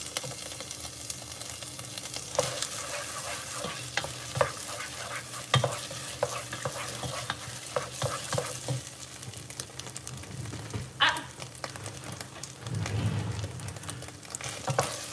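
Wooden spoon stirring tomato sauce that sizzles in a pot over heat: a steady frying hiss with scattered sharp clicks and knocks of the spoon and popping sauce.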